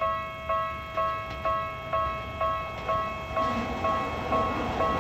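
Japanese level-crossing warning bell ringing steadily, about two strikes a second, as a Tokyu Ikegami Line electric train approaches. The train's running noise rises under the bell from about three seconds in.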